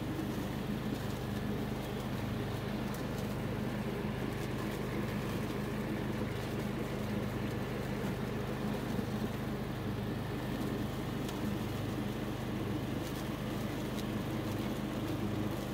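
An engine running steadily at constant speed, a low even hum with a slight regular pulsing.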